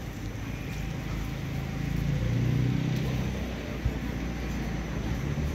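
Outdoor street ambience: a low rumble, louder from about two seconds in, with voices in the background, and a single click about four seconds in.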